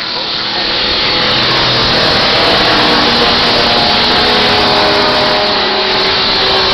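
Several 1960s GT racing cars accelerating past one after another out of a corner. Their engine notes overlap, and the sound builds about a second in and stays loud as they go by.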